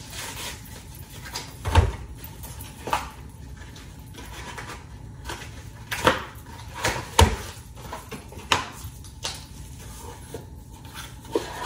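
Kitchen handling noise: scattered knocks and clinks of dishes and utensils at irregular intervals, with two louder knocks, one about two seconds in and one about seven seconds in.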